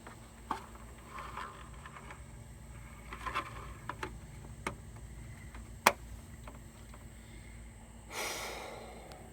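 Plastic fuse box cover being pressed and worked into place: scattered light clicks and knocks, the sharpest about six seconds in, as its latches fail to fasten properly. A short breathy rush of noise near the end.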